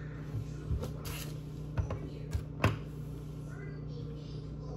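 Gingerbread house pieces and icing bags being handled on a table: a handful of light taps and knocks over a steady low hum, the sharpest knock a little under three seconds in.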